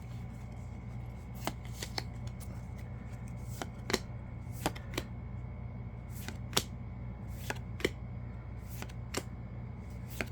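Yu-Gi-Oh trading cards flipped through one at a time from a freshly opened pack, giving sharp, irregularly spaced card snaps about once or twice a second over a steady low hum.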